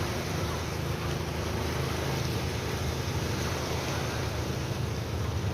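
Steady rushing of sea waves with wind buffeting the microphone, a low rumble under an even hiss.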